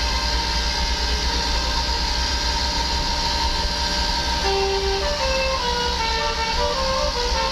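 Telolet musical air horn on a bus playing a quick melody of short, stepping notes, starting about halfway through over the steady low rumble of the vehicle's engine and road noise.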